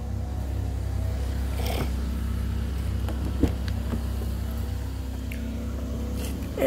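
2015 Chevrolet Impala LT engine idling with a steady, even low hum. A single light knock comes about halfway through.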